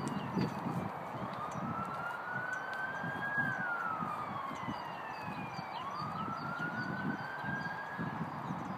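A siren wailing slowly, its pitch rising and falling in cycles of about four to five seconds.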